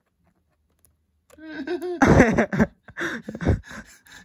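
A man's wordless vocal sounds, a rising strained groan followed by short laugh-like bursts, starting about a second and a half in.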